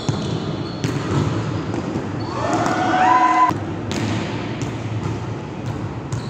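Volleyball practice play in a large echoing gym: a few sharp thumps of the ball being struck, with a brief rising high-pitched squeal about two and a half seconds in, over the steady din of players moving.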